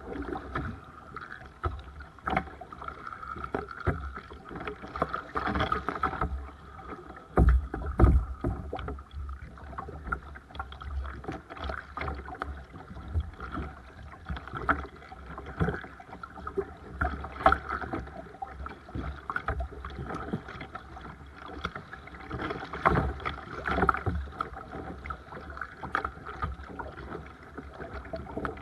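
Paddling a Seabird Discovery sea kayak: irregular splashes of paddle blades in the water and water slapping against the hull, with a louder thump about eight seconds in.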